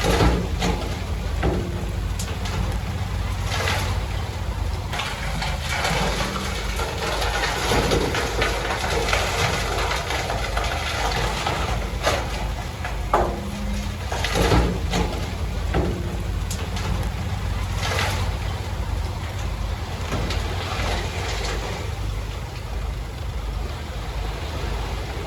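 Heavy earthmoving machinery with its engine running steadily at a low rumble, and occasional sharp knocks and clanks through it.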